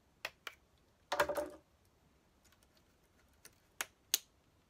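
Staples being pried out of a wooden speaker baffle board with a knife and staple puller: a series of sharp metal clicks and snaps, with a louder, longer rasp about a second in.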